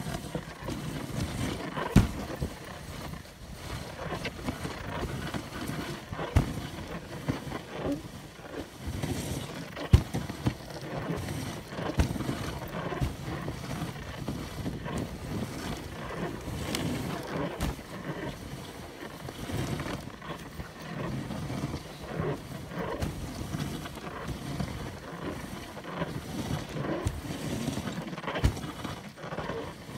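Dog sled running over a packed snow trail behind its team: a steady scraping hiss of the runners on snow with wind buffeting the microphone, broken by a few sharp knocks, the loudest about ten seconds in.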